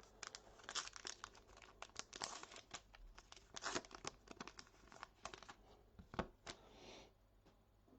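Plastic-foil wrapper of a trading-card pack being torn open and crumpled in the hands, a run of irregular crinkling crackles that stops about a second before the end.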